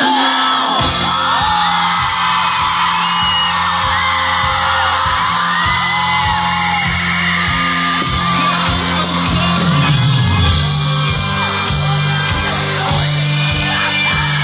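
Live pop band playing with a steady drum beat and bass, with loud singing and yelling voices from the crowd over it.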